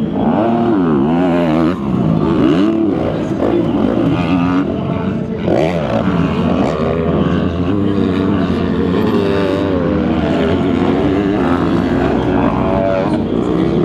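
Motocross bike engines revving hard as riders race around the track, the pitch rising and falling with each throttle change and gear shift, with more than one engine heard at times.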